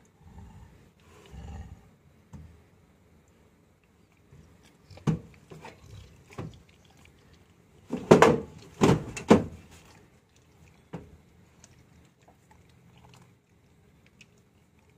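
Labrador retriever making short vocal sounds: a few faint ones, then three loud ones in quick succession about eight seconds in.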